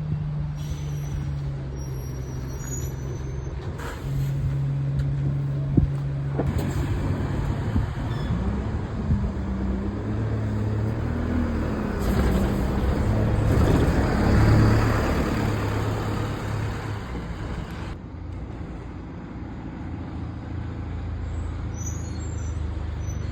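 London bus engines running at a stop, then one pulling away, its engine note rising and falling, with a loud hiss of air brakes in the middle and a sharp click about six seconds in.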